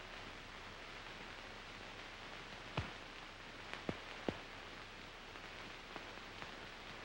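Faint steady hiss of an old film soundtrack, with a few scattered clicks; three sharper ones come close together around the middle.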